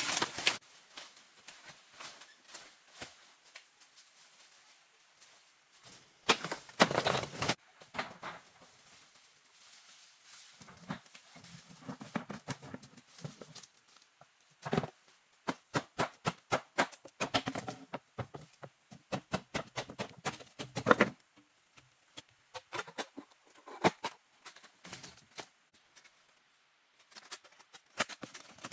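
Irregular knocks and clicks of hands working with objects, coming in clusters with a few louder, denser runs about seven, seventeen and twenty-one seconds in.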